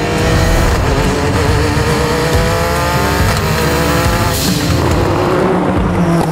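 The Hoonipigasus race car's twin-turbo flat-six accelerating hard, its pitch rising steadily through the revs. A brief sharp burst of noise comes about four seconds in.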